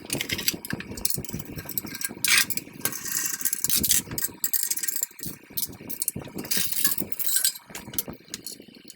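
Metal parts of a 10-inch band saw rattling and clicking as the blade and upper wheel are taken off, with irregular knocks and a few longer scraping rattles.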